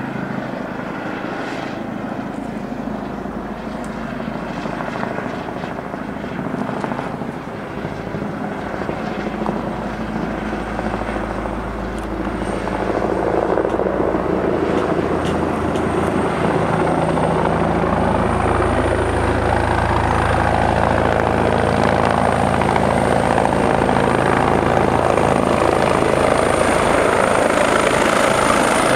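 Eurocopter EC135 twin-turbine helicopter approaching and descending to land, its rotor and engine noise growing louder about halfway through as it comes close. A thin, high, steady whine comes in partway through and strengthens as it settles into a low hover.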